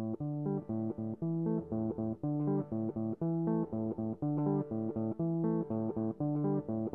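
Background music: plucked guitar over a bass line, playing a steady run of notes.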